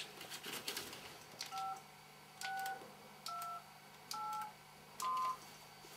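Mobile phone keypad dialling tones as a number is keyed in: five short beeps about a second apart, each two notes sounding together and starting with a faint key click.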